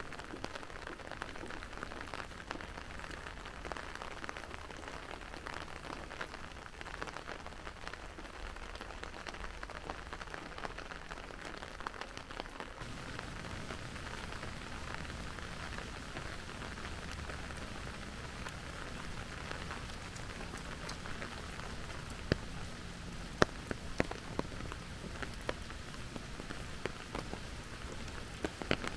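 Steady rain falling and pattering on surfaces. About 13 s in the sound changes abruptly and a low rumble joins the patter, and near the end scattered louder drops tick sharply close by.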